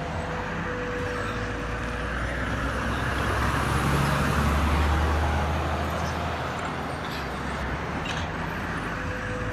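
Motor-vehicle noise: a steady rumble that swells to a peak about halfway through and then fades, like a vehicle passing by.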